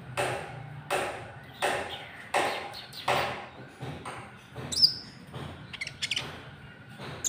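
Konin trotol bird calls played as a lure: a harsh, scratchy call repeated about every three quarters of a second, then a few short, high-pitched chirps in the second half.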